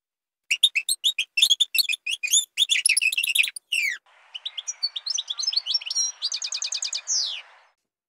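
Recorded European goldfinch song: quick, high twittering chirps. After about four seconds comes a second phrase over a background hiss, ending in a fast trill and a falling note.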